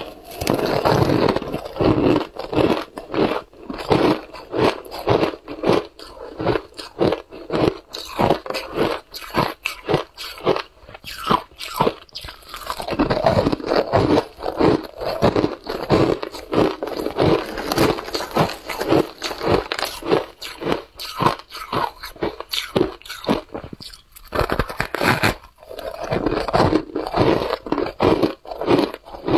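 Shaved ice dusted with matcha powder being bitten and chewed: many quick crunches, one after another.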